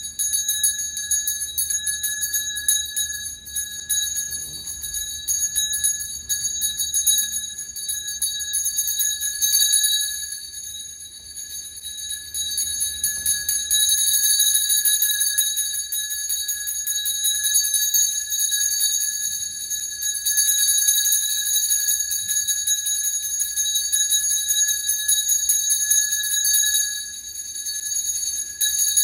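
Brass Taoist ritual hand bell shaken without pause, a steady high, bright ringing that dips briefly about ten seconds in and again near the end.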